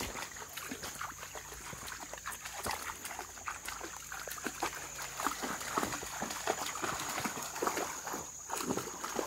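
Dogs wading through shallow creek water, their legs splashing and sloshing in an irregular patter. A steady high-pitched whine runs underneath.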